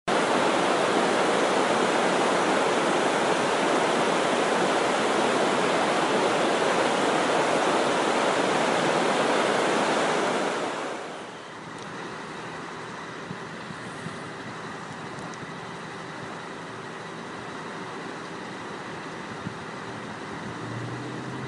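Water pouring over a dam's spillway: a loud, steady rush for about the first ten seconds. About eleven seconds in it cuts to a much quieter, steady wash of the rain-swollen river flowing high over the drowned dam.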